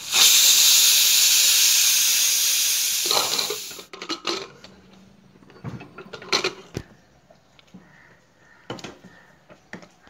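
Pressure cooker whistle blowing: a loud steam hiss from the weighted vent that starts suddenly and dies away after about four seconds, the sign that the cooker has come up to pressure. Then scattered metal clicks and knocks as the aluminium lid is handled.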